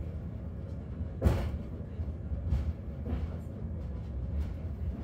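Hakone Tozan Cable Car, a funicular, running downhill with a steady low rumble and a few knocks from its running gear, the strongest about a second in.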